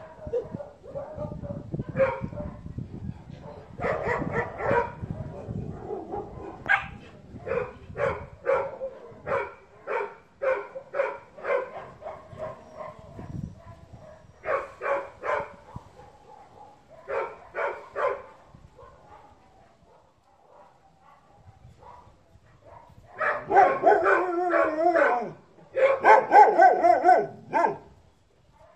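Dog barking over and over in short, sharp barks, at times one or two a second, pausing for a few seconds past the middle. Near the end come two longer drawn-out calls with a wavering pitch, the loudest sounds here.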